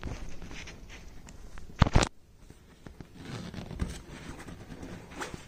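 Backpack being handled, its bottom zip pocket opened, with the rasp of the zipper and rustling of nylon fabric. Two sharp clicks about two seconds in are the loudest sounds.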